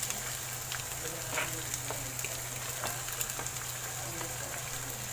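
Chicken, liver, hot dog and onions sizzling in a nonstick frying pan: a steady frying hiss with scattered small pops and crackles, over a steady low hum.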